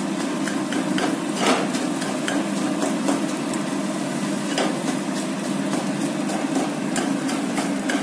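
Metal spatula scraping and knocking irregularly against a kadai as it breaks frying eggs into small pieces, over the steady sizzle of the eggs in hot oil.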